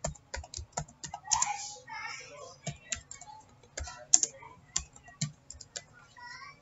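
Computer keyboard being typed on: a run of irregular, quick key clicks as a short line of text is entered.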